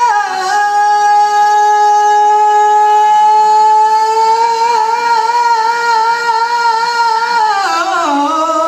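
A singer holding one long, high sung note for about seven seconds, wavering slightly in its second half, then sliding down near the end.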